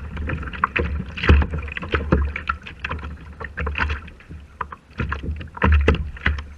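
Choppy sea water slapping and splashing against a Hobie kayak's plastic hull, heard as irregular knocks and splashes over a steady low rumble.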